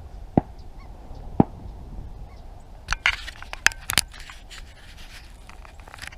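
Short honking waterfowl calls in separate bursts: two single sharp calls early and a quick flurry about three to four seconds in.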